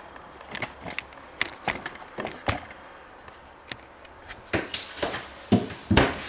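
Handling noise: scattered light clicks and knocks, with a few louder knocks about four and a half to six seconds in.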